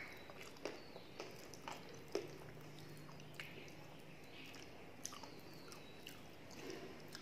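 Faint, close-miked chewing of a soft mouthful of khichuri and luchi, with small wet clicks and crackles from the mouth. Fingers squish through soft food on a steel plate, over a faint steady low hum.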